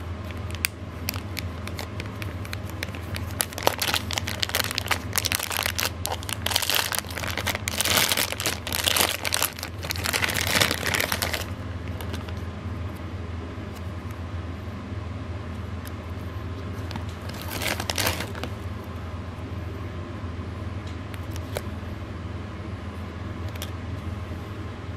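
Clear plastic bag crinkling and rustling as hands pull a black TPU watch stand out of it, heaviest from about 3 to 11 seconds in, with a shorter rustle near 18 seconds. A steady low hum runs underneath.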